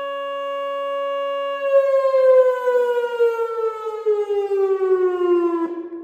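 Whelen 2910 electronic warning siren sounding its steady alert tone, then, about a second and a half in, sliding steadily down in pitch as it winds down at the end of the alert, dropping away near the end.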